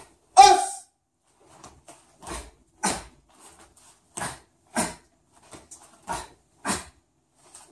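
Karateka's short, sharp exhalations timed to the strikes and blocks of a kata, some of them voiced. There are about seven, mostly in quick pairs about half a second apart; the loudest comes just under half a second in.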